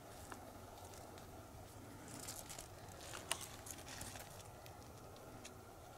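Faint scattered clicks and crackles over a low background hiss, with one sharper click a little past the middle.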